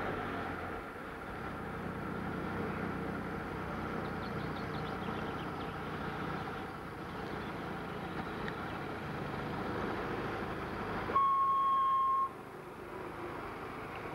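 A vehicle engine runs steadily with road noise. About eleven seconds in, a loud, high, steady beep sounds for about a second.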